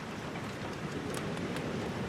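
Steady rain falling, with a few sharp clicks about a second in.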